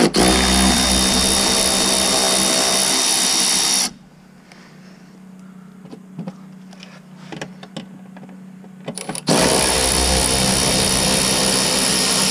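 Milwaukee M12 cordless ratchet running for about four seconds, stopping with a few light handling clicks, then running again from about nine seconds in.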